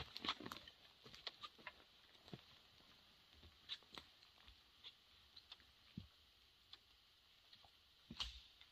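Near silence with faint footsteps on forest litter: scattered soft snaps and crunches of twigs underfoot, a small cluster at the start and another near the end.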